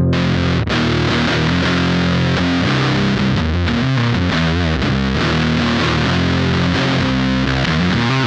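Electric guitar played through heavily distorted fuzz pedals, with thick, gainy held chords and a riff of changing notes. The tone turns brighter and fuller right at the start.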